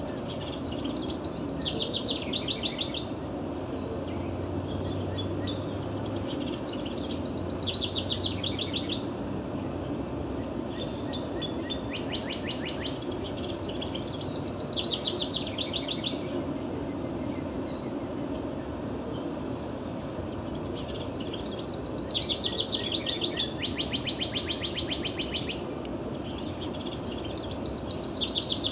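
House wren singing: a fast, high run of rapid notes that falls in pitch, repeated five times about every six to seven seconds, with a softer burst between the second and third songs.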